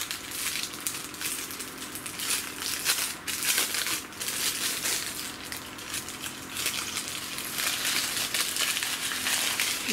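Brown wrapping paper crinkling and crackling as it is pulled open and crumpled by hand, an irregular run of crackles.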